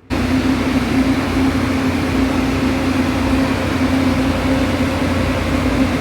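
Mixflow grain dryer running: the steady, loud rush of its fan with a low hum underneath, cutting in abruptly and holding unchanged.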